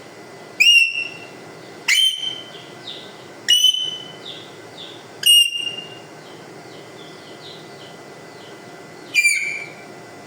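A parrot whistling: five loud, sharp whistles that each swoop up and hold briefly, with a longer gap before the last one. Fainter, falling chirps come between the first four.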